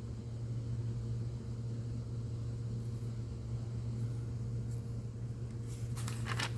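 Steady low hum of room or fan noise, with a brief rustle about six seconds in.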